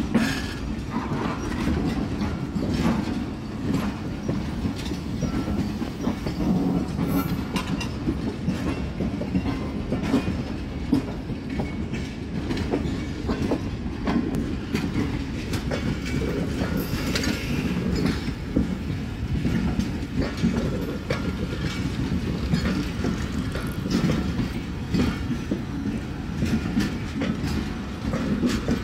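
Pakistan Railways passenger coaches rolling past on the adjacent track during a shunting move: a steady rumble with the wheels clicking over rail joints, and a couple of brief high squeals.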